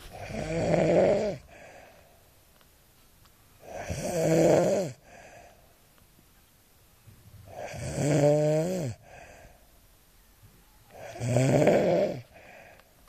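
A person snoring loudly: four long snores about every four seconds, with quiet between them.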